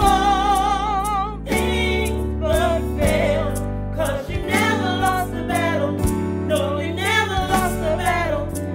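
Gospel worship song: a singer holds a long note with a wide vibrato for the first second and a half, then sings on in short phrases over sustained instrumental chords.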